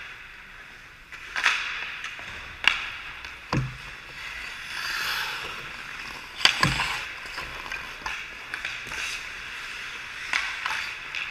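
Ice hockey play: skate blades scraping the ice and sharp clacks of sticks and puck, with two heavier thuds, one a few seconds in and one past halfway.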